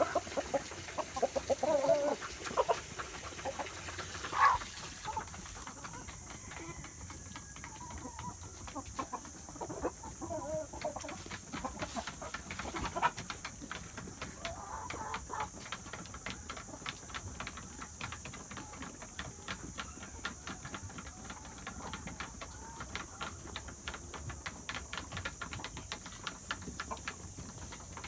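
Domestic chickens clucking, with the calls bunched in the first few seconds and scattered after that. A dense run of small clicks follows through the second half, over a steady high hiss.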